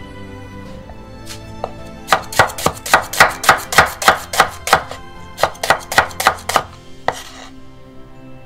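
Broad-bladed kitchen knife slicing an onion along the grain on a wooden cutting board: a quick run of crisp chops, about four a second, starting about two seconds in, with a brief break midway.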